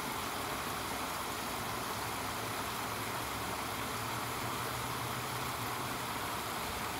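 A small spring-fed stream pours out from under a rock ledge and falls into a shallow pool, making a steady, unbroken splashing.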